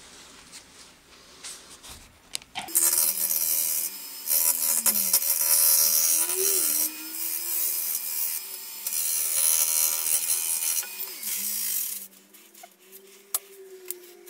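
A wood lathe's motor whine with a turning tool cutting the rim of a large, very hard plane-wood bowl, giving a loud scraping hiss from about three seconds in until near the end. The motor's pitch dips and recovers during the cut. The cutting then stops, leaving the lathe running.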